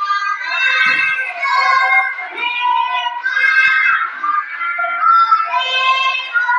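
Children singing a song in high voices, with notes held and sliding from one to the next.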